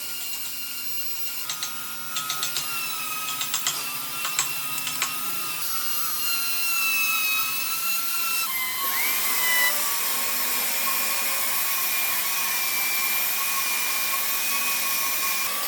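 A handheld electric power tool running on wood with a steady high whine, with a few sharp clicks between about two and five seconds in. About halfway through, the whine drops slightly in pitch and a fuller rushing noise fills in.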